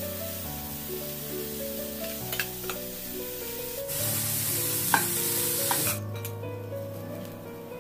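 Diced bitter gourd sizzling as it fries in a stainless steel pan, stirred with a spatula that scrapes and taps the pan a few times. The sizzle grows louder about four seconds in and drops away about two seconds before the end, leaving background music.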